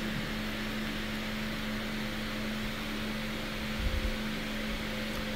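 Steady background hiss with a constant low electrical-sounding hum, and a brief low thump about four seconds in.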